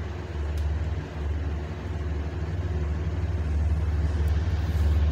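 Metro-North GE Genesis P32AC-DM locomotive approaching a station: a steady low engine drone that grows louder as it nears.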